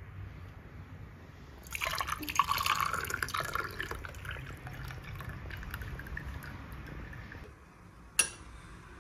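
Brewed tea poured from a porcelain gaiwan into two small glass tea glasses: a splashing trickle for several seconds, strongest at first, then thinning out. A single sharp porcelain clink comes near the end.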